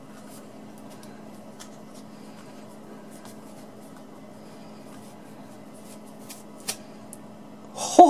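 Faint scratching and rasping of a sharpened metal debit card being sawn through braided rope, over a steady low hum. A laugh breaks out near the end as the rope parts.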